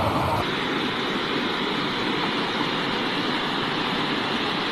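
Steady rushing noise of fast-flowing floodwater, changing character abruptly about half a second in.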